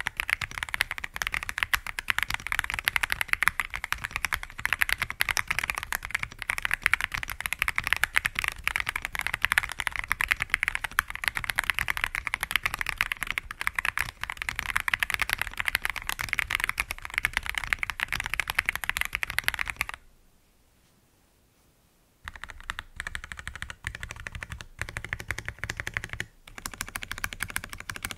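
Modded Akko ACR Pro Alice Plus mechanical keyboard (polycarbonate plate, stock Akko CS Crystal linear switches, Milk Cover cherry-profile PBT keycaps) typed on quickly and steadily. The typing stops for about two seconds a little over two-thirds of the way in, then resumes more sparsely.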